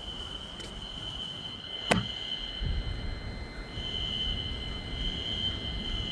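Fire alarm sounding a steady high-pitched tone, breaking off for about a second midway and then coming back. A sharp click about two seconds in is the loudest sound, and a low rumble comes in just after it.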